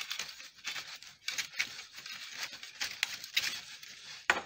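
Metal pipe handle twisted into the hole of a wooden push-broom head, its end grinding against the wood: a run of short, scratchy rasps, with a sharp knock near the end.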